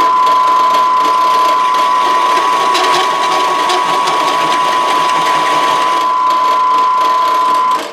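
A drill press driving a hole saw through steel dry, without cutting oil: loud rapid chatter with a steady high-pitched ring, the sign of a dry cut that gives a rough, chattery hole. It cuts off near the end.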